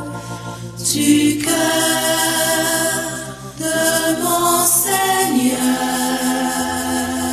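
Choir singing a slow hymn in long held notes, the pitch changing every second or two.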